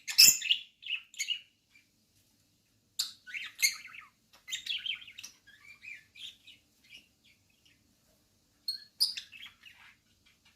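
Small pet parrots chirping and twittering in quick, high bursts during courtship. The chirping comes in three spells, with pauses of a second or so between them.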